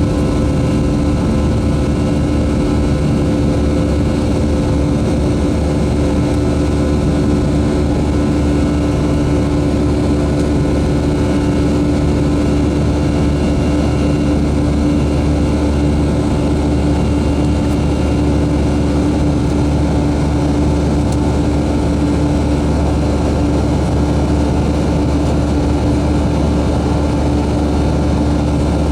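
Boeing 737-300 jet engines running, heard as a steady, unchanging drone with a constant hum and rumble from inside the cabin.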